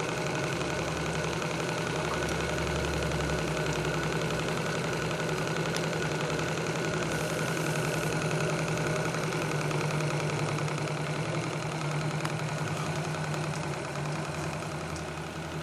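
Graham TVR1A twin-cylinder vertical model steam engine running steadily on steam, with a fast, even beat.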